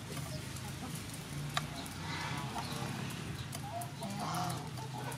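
Chickens clucking, with a metal spoon clinking and scraping in a small ceramic bowl as salt, black pepper and sugar are stirred together.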